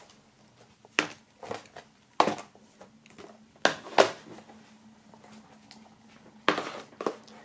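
Plastic DVD cases being set down one after another on a wooden table: a series of about seven short clacks and knocks, with light handling rustle between them.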